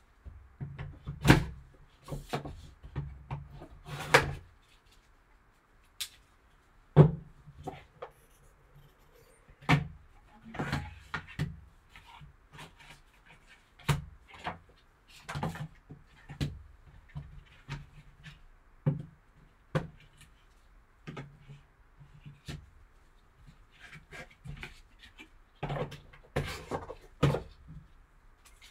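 Gloved hands opening a cardboard trading-card box and handling its lid, a paper insert and a plastic graded card slab: an irregular run of sharp knocks and taps with paper and cardboard rustling between them.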